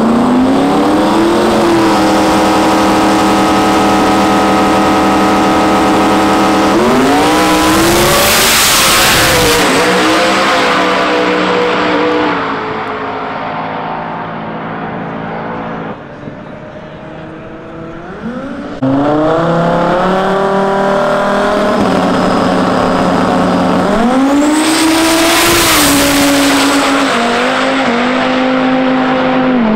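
Drag race cars at full throttle, twice. The first engine is held at high revs for several seconds, then pulls away and goes close by about eight seconds in. A second car revs up and passes about twenty-five seconds in, its engine note then falling in steps.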